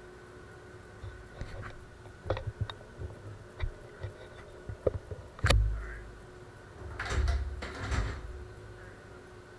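Knocks and clicks of parts and tools being handled by a CNC milling machine, with one loud bang about five and a half seconds in and two short rushing bursts a little later, over a faint steady machine hum.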